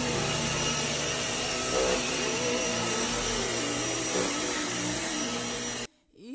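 Corded upright vacuum cleaner running steadily as it is pushed over carpet. It cuts off suddenly near the end.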